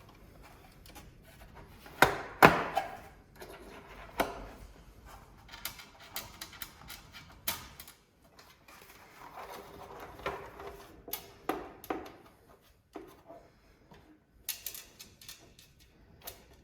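Hands handling the metal case of a network video recorder and its small hard-drive screws: scattered clicks and knocks, the loudest two close together about two seconds in.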